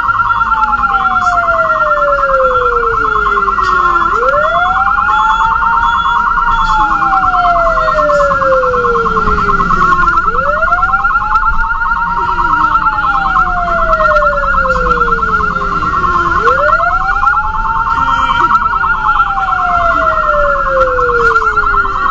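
Ambulance siren sounding continuously with two tones at once: a fast, steady warble over a slow wail that rises quickly and then glides slowly down, repeating about every six seconds.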